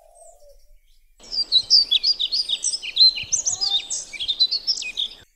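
Birds singing: a busy run of high chirps and short trills that starts about a second in and cuts off abruptly near the end.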